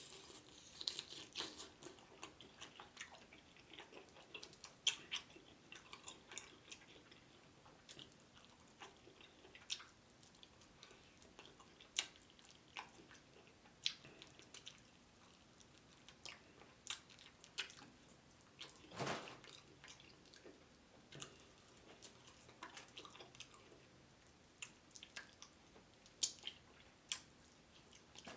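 Close-miked chewing of fried chicken: faint, irregular mouth clicks and crunches. A louder, longer crunch comes about two-thirds of the way in.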